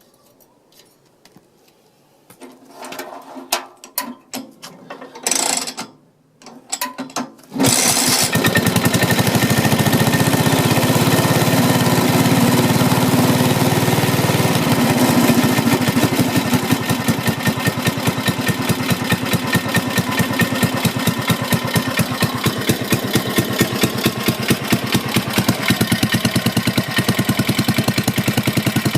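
Small Soviet UD-1 engine being started: a few uneven sputtering bursts, then it catches about seven and a half seconds in and runs steadily with an even beat that grows more distinct toward the end.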